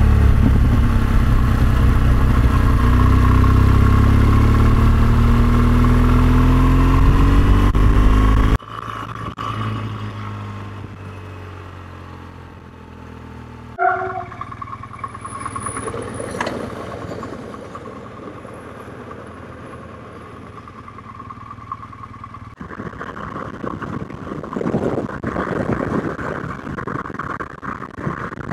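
BMW R1200GS boxer-twin engine running under way, its pitch rising and falling with the throttle. About nine seconds in, the sound drops suddenly to a much quieter low engine hum, with a brief blip about fourteen seconds in. From about twenty-three seconds a louder, rougher rushing noise of riding at speed returns.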